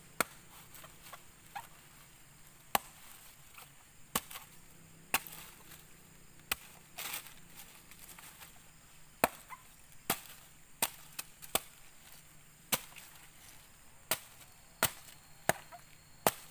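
Machete chopping into the husk of a green coconut lying on the ground: a series of sharp, single strikes roughly once a second, irregularly spaced.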